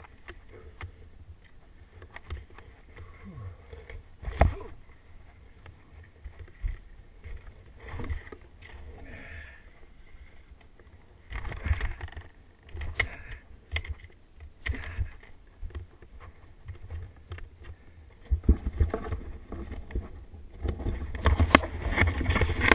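Skis scraping and swishing over packed snow in irregular strokes, with several sharp thumps from the ski run's bumps.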